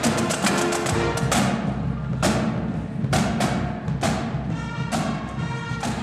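Goal-celebration music of a hockey goal horn track, with heavy drum hits about once a second and held pitched tones joining in the second half.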